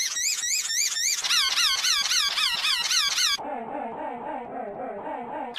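A looped sad wheezing sound effect: a wavering squeaky wheeze repeating about three times a second, run through pitch-shifting edit effects. The pitch shifts about a second in. About three and a half seconds in it drops sharply lower, sounding muffled and quieter.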